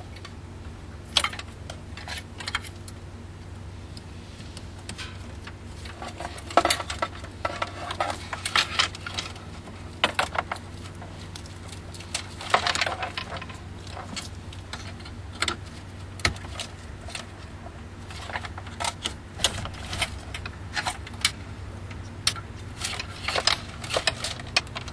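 Plastic wiring-harness connectors being unplugged and pushed home behind a car radio: scattered sharp clicks and short rattling bursts of handled plugs and wires, over a steady low hum.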